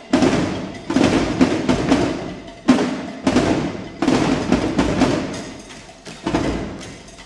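Drum squad playing a percussion cadence on snare and bass drums: sharp, loud hits about half a second to a second apart, each ringing briefly before the next.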